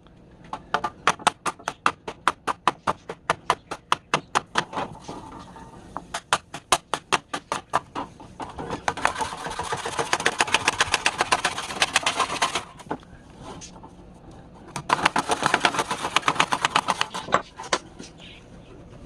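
Rapid back-and-forth scrubbing strokes on a steel saw blade, typical of rust being hand-abraded off an antique rip saw. The strokes come about four to five a second at first, then faster, in two longer runs with a short pause between them.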